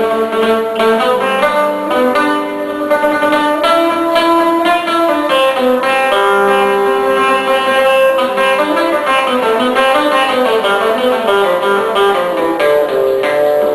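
Live music in the karsilama style: a plucked string instrument playing a flowing melody of held and moving notes.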